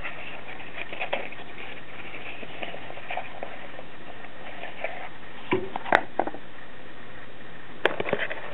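A cardboard vacuum-tube box being handled and set down on a workbench. There are a few light taps, then a cluster of sharper knocks about five and a half to six seconds in and one sharp knock near the end, over a steady hiss.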